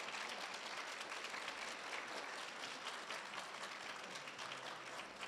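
Audience applauding: many hands clapping in a steady, even stream.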